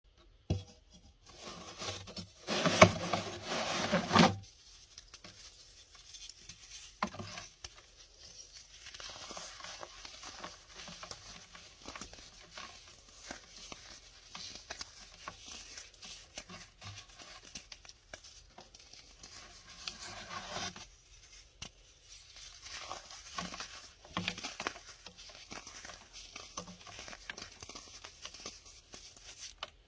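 A hardened baking soda dome crushed by hand: a loud crunchy, glassy crackle about two seconds in as it breaks, then steady softer crackling and crumbling as the chalky slabs are squeezed apart between fingers.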